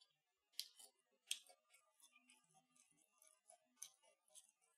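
Close-miked chewing of an air-fried breaded mini chicken kiev: crisp crunches of the crumb coating and small wet mouth clicks, with two louder crunches in the first second and a half.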